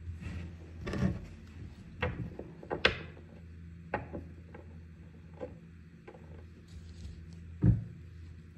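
Tarot cards being handled on a table: a few separate knocks and taps with light rubbing in between, the loudest knock near the end, over a steady low hum.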